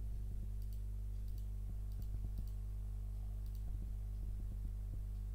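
Faint, irregular computer mouse clicks, about a dozen over a few seconds, over a steady low hum.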